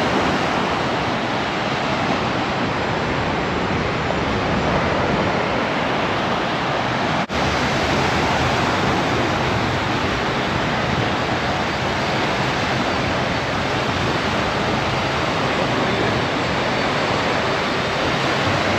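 Steady rush of small waves washing onto a sandy beach, with a brief break about seven seconds in.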